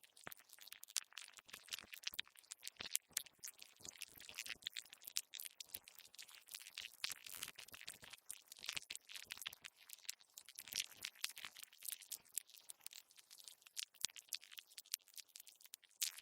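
Insect sound effect: a dense, irregular crackling and scratching of many small high clicks, with no steady chirping tone.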